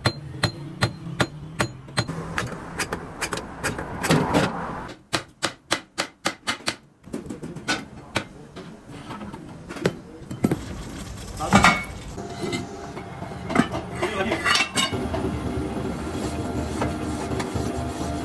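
Hammer blows on metal, first in a steady run of about three strikes a second, then slower, irregular strikes with some ringing.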